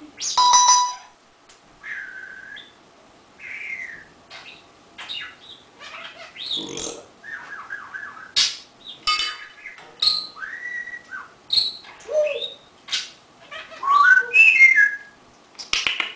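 African grey parrot calling: a string of separate whistled notes that rise and fall, sharp clicks and harsh squawks, with the loudest squawks at the start and again near the end.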